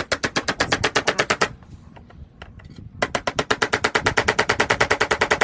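A tool making air holes in a plastic tub lid: rapid, even clicking, about a dozen clicks a second, in two runs with a short pause between them.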